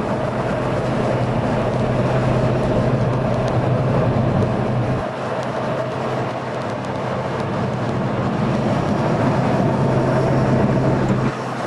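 Tram running along the track: rolling wheel and rail noise with a steady low motor hum that drops out about five seconds in, comes back, and stops again near the end.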